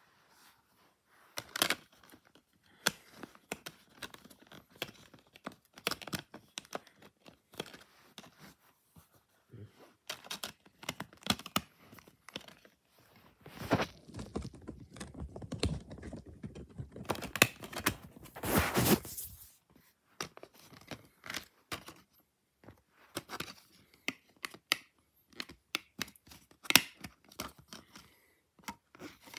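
Handling of an open multi-disc plastic DVD case and its discs: scattered clicks and knocks of plastic, with several seconds of dense rustling and rubbing from about halfway in.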